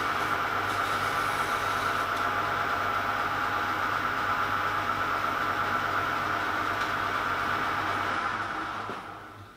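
Metal lathe running steadily with a brass piston turning in the chuck, a constant mechanical hum with a high whine from the drive. The sound fades away near the end.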